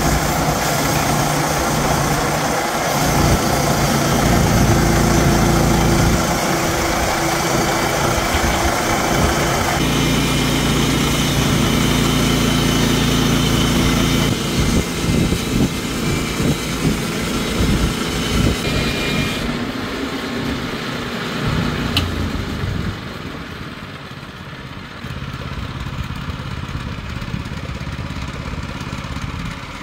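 Woodland Mills HM122 portable bandsaw mill running, its Kohler gas engine under load as the blade saws a board along a telephone-pole log. The engine note shifts about ten seconds in; about two-thirds of the way through the higher cutting noise stops, there is one sharp click, and the engine runs on more quietly.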